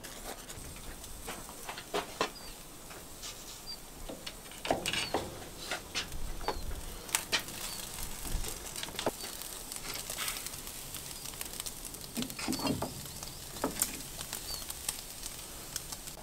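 Metal skewers of raw meat clicking and clinking as they are set down across a brick grill over charcoal, in scattered short knocks. Faint short bird chirps come every few seconds.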